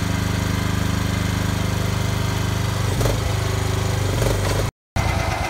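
Engine of a Landscape Buddy one-ton Chinese mini excavator running steadily with an even, rapid pulse as the boom and bucket are worked. The sound cuts out for a moment near the end, then resumes.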